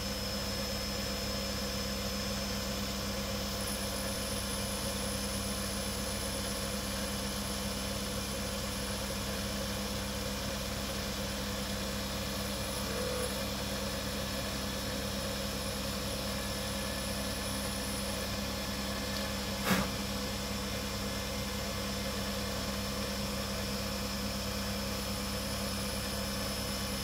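Small benchtop metal lathe running steadily with a low hum while turning a brass bush. A single sharp click about two-thirds of the way through.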